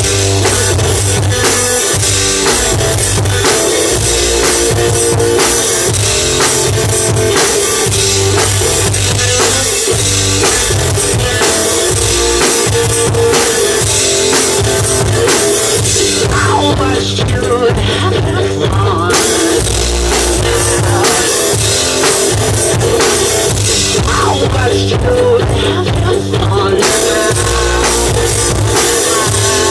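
One-man band playing a rock-style song: a drum beat triggered with his feet through a pedal board, with guitar strummed and a bass line picked by thumb on a combined guitar-bass-keyboard instrument. Steady, loud beat throughout.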